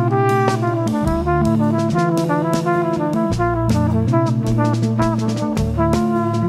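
Jazz quartet playing an instrumental passage: a flugelhorn line of quick stepping notes over drum kit with cymbals and fretless bass.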